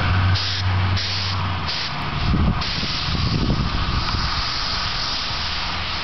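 Paint sprayer hissing, first in several short bursts and then in a steady unbroken spray from about two and a half seconds in, over a low engine hum that fades out near the start.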